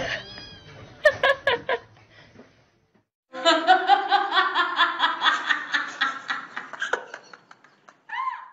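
A person laughing in quick, repeated bursts: briefly about a second in, then, after a short pause, steadily for about four seconds.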